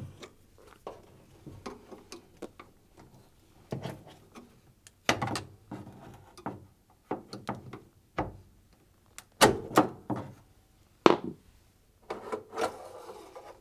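Washing machine heating element being worked and pulled out of its housing in the tub: irregular knocks, scrapes and rubbing, with the loudest clunks about five, nine and eleven seconds in.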